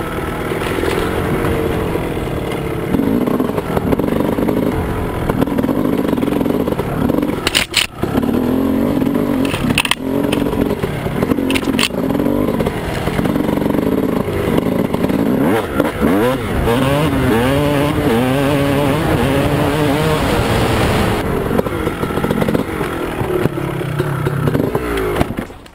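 2001 Honda CR250's 250 cc two-stroke single, fitted with a 10 oz flywheel weight, revving up and down under load on a trail ride, with a few sharp knocks along the way. The engine sound drops away abruptly near the end.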